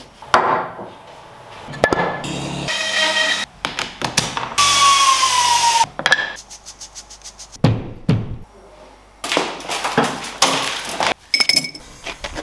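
Quick succession of short workshop sounds cut one after another: knocks and thumps on wood and other hand-tool noises. About five seconds in comes a tone that slowly falls in pitch, followed by a quick run of ticks.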